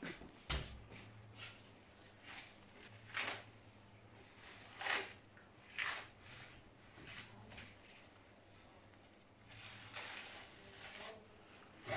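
Plastic wrap crinkling in short, scattered rustles as a ball of dough is unwrapped and handled, with a longer rustle near the end. A soft thump comes about half a second in.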